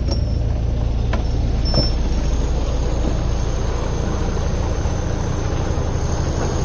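Old lorry's engine running steadily under load as it hauls a narrowboat out of the water, with a couple of light knocks about one and two seconds in.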